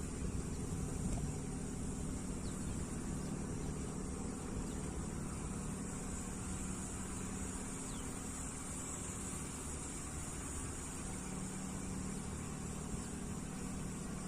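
A steady engine drone, with a continuous high chirring of insects over it.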